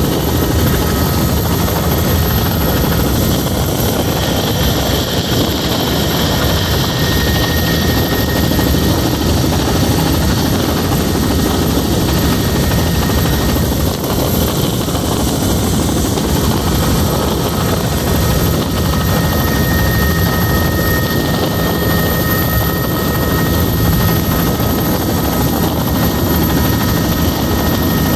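Helicopter rotor and engine noise heard from inside the cabin: a steady, loud drone with a thin, high, constant whine over it.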